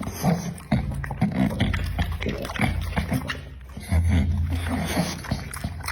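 American Pocket Bully dog eating, with many short wet chewing clicks over a low rumble that swells at times, strongest about four seconds in.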